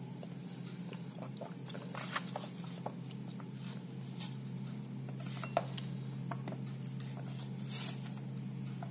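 Plastic drink pouch crinkling and rustling as it is handled, with scattered light clicks and taps over a steady low hum. In the second half the thick guava drink is squeezed out of the pouch into a glass.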